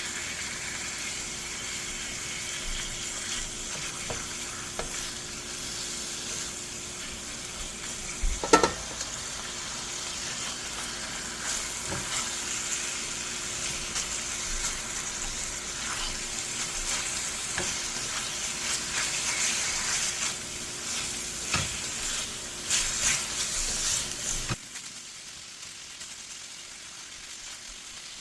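Chicken pieces frying with garlic, ginger and dried chilies in oil over medium heat: a steady sizzle with the clicks and scrapes of stirring, and one sharp knock about eight seconds in. The sizzle drops away suddenly near the end.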